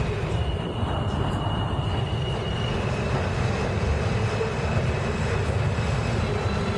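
R160A subway cars rolling past close by along an elevated platform: a steady rumble of wheels on rail, with a thin high tone over it for the first two or three seconds.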